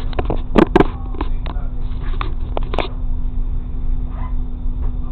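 Railcar running at low speed, a steady low rumble with a constant hum. Over the first three seconds a run of sharp clicks and knocks comes through, the loudest two close together a little under a second in.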